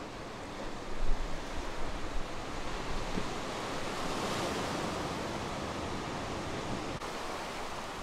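Ocean surf breaking on a black stony beach and among lava rocks, a wave swelling and washing in around the middle. Wind buffets the microphone about a second in.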